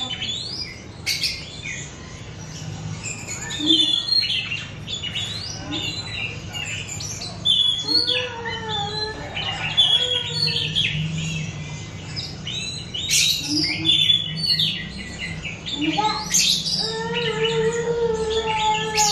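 Young oriental magpie-robin (kacer) chirping and twittering in short, varied high phrases: a young bird still learning its song. A lower, drawn-out call comes in twice, about eight seconds in and again about sixteen seconds in.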